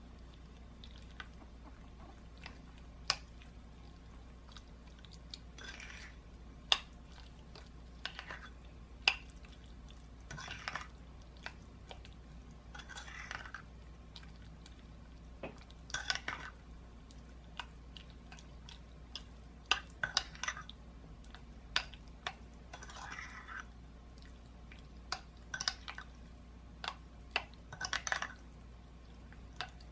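Wooden spoon stirring brown sugar into cooked black tapioca pearls in a glass bowl. The strokes come every second or two as wet scraping swishes, with sharp clicks where the spoon knocks against the glass.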